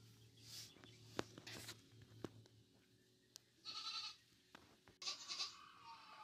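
Faint animal cries: two short calls about a second and a half apart, the second one about five seconds in, with a few light clicks between them.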